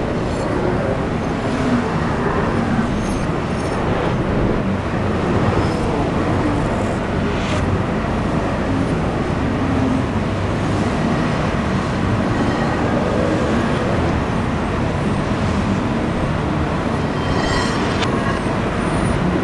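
Steady low rumbling ambient noise of a busy indoor market hall full of shoppers.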